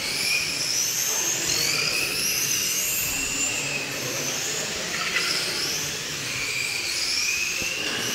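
Radio-controlled Mardave V12 model racing car's electric motor whining high, its pitch rising and falling over and over as the car speeds up and slows through the corners.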